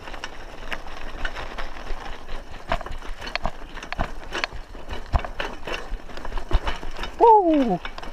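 Raleigh Ascent mountain bike rattling and clattering over a rocky dirt track: a steady run of sharp clicks and knocks from the frame and drivetrain, with a low rumble from the tyres. About seven seconds in comes a brief, loud voice sound that slides down in pitch.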